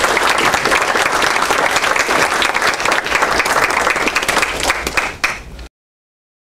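Audience applauding, a dense patter of many hands clapping, which cuts off suddenly a little before the end.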